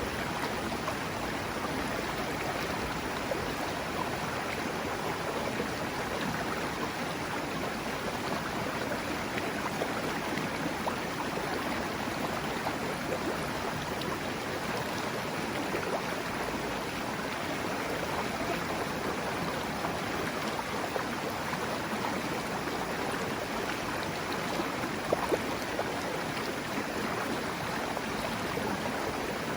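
Mountain river rushing steadily over rocks, an even rush of water, with two brief sharp clicks near the end.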